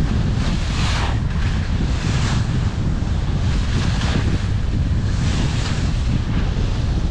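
Wind buffeting the microphone: a loud, steady low rumble, with several short hissing swells in the higher range.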